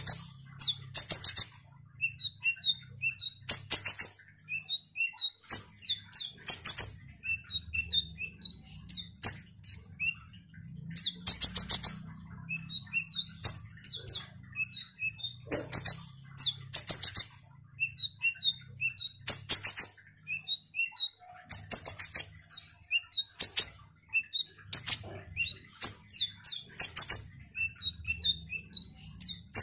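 A male kolibri ninja sunbird singing loudly in phrases every couple of seconds. Each phrase mixes very fast, high, buzzy trills with short, sharp chirping notes.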